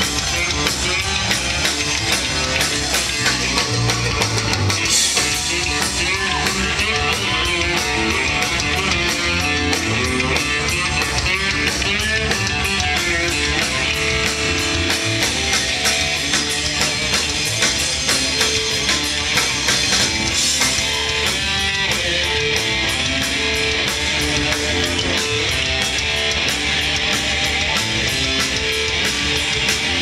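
Live rock band playing an instrumental passage: electric guitars over a drum kit, loud and steady throughout.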